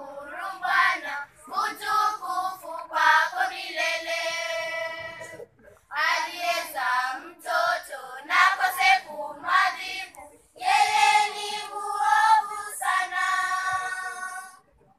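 Children's choir singing a song in unison phrases, with held notes and short breaks between phrases about five and a half and ten and a half seconds in.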